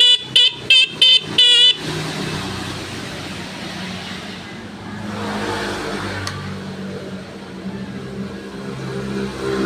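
Mini motorbike's horn beeping in about five quick short toots, then a small engine running steadily at a low idle.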